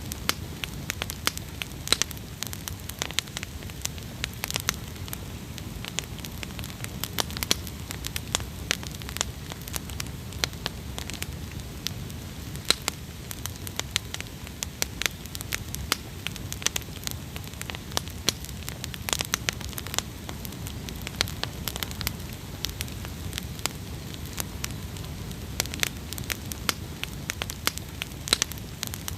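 Wood campfire burning: a steady low rumble of flames with frequent sharp, irregular crackles and pops.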